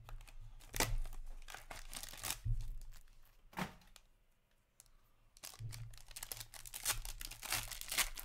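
Packaging of an Upper Deck Black Diamond hockey card box and its wrapped pack being torn and crinkled open by hand, in sharp crackling strokes. There is a short lull about four seconds in, then the wrapper crinkles steadily. A steady low hum runs underneath.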